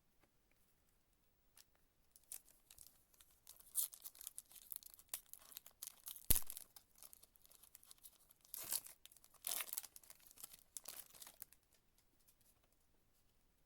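Card pack's foil wrapper being torn open and crinkled, a run of rustles and rips with one sharp snap about six seconds in.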